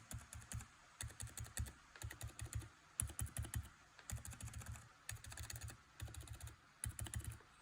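Retooled Gazzew Ice Blue switches with silent linear stems and 68 g springs being typed on in quick runs of keypresses with short pauses between. The clacks are quiet and muffled, what is expected of a silent linear switch.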